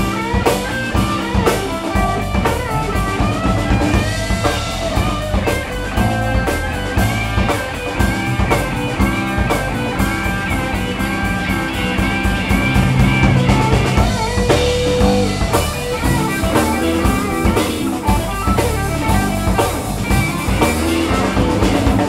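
Live alt-country rock band playing an instrumental break: a lead guitar line with bent and held notes over bass guitar and a steady drum-kit beat.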